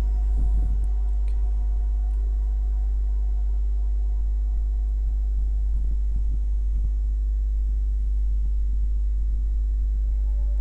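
Ambient background music at a sustained, sparse stretch: a deep steady drone with faint held tones above it.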